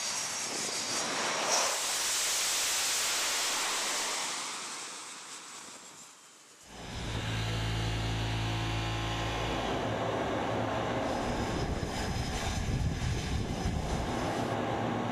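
A jet fighter's engines, loud as it comes in to land, fading away over several seconds. After a sudden cut about six and a half seconds in, the machinery of the carrier's arresting gear below deck runs with a steady low hum.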